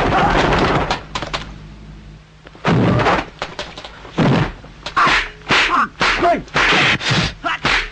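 Kung fu film fight sound effects: a quick run of short punch and kick impacts, crowding together in the second half, mixed with the fighters' short shouts.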